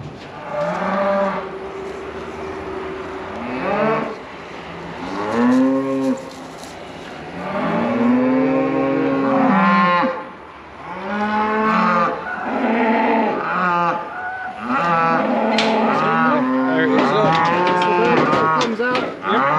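Cattle mooing over and over, several animals calling at once. Each call rises and then falls in pitch, and the calls come thicker and overlap more near the end.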